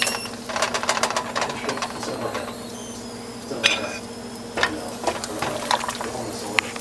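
Porter-and-stock braising liquid bubbling and crackling in a pan around short ribs, with a metal fork clinking against the pan as the ribs are moved: once at the start, again about halfway and near the end.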